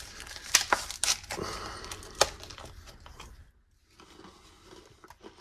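Crinkling and crackling with sharp clicks as a ration energy bar and its wrapper are handled, going much quieter after about three seconds.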